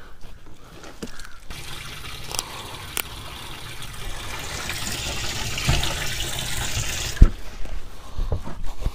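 Water running and splashing into a bass boat's open livewell, a steady rushing that starts about a second and a half in. A loud sharp thump comes around seven seconds in, and the water sound stops with it.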